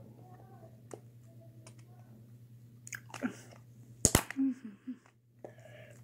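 Plastic 2x2 Rubik's cube being turned by hand: scattered light clicks of the layers, with a sharp double click about four seconds in. Brief faint mouth sounds and a steady low hum sit underneath.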